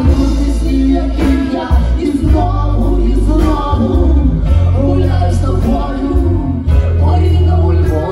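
Live band playing a song: electric bass, drums, electric guitar and keyboard, with a woman singing into a microphone over them.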